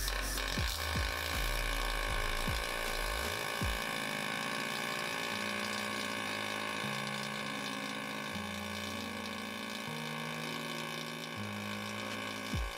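Pulsed MIG welding arc on aluminium with 1.0 mm AlMg5 filler wire, from a MAGNUM MIG 199 Alu-Puls Synergia in its aluminium pulse-synergic program: a steady hissing buzz held evenly as the bead is laid.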